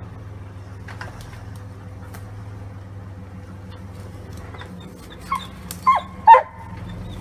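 A dog barks three times, short loud barks about half a second apart near the end, over the low steady running of a Jeep Wrangler's engine as it crawls down the rocks.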